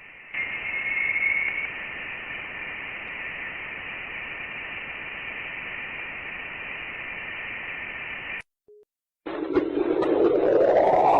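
Sonified NASA space recording of electromagnetic signals: a steady radio-static-like hiss with a faint whistle in it, cutting off suddenly after about eight seconds. After a brief gap, a new recording starts near the end with a low steady tone and a tone rising in pitch.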